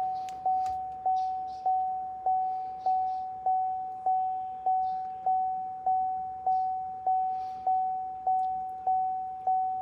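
A vehicle warning chime dinging at an even pace, about one ding every 0.6 seconds, each a single clear pitch that fades before the next.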